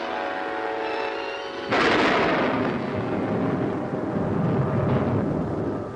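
Film-trailer soundtrack: held orchestral chords, then about two seconds in a sudden loud thunderclap that rolls and rumbles on for several seconds.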